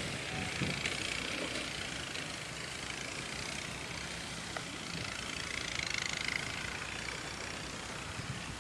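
Diesel-electric locomotive of an approaching passenger train, its engine giving a low, steady drone.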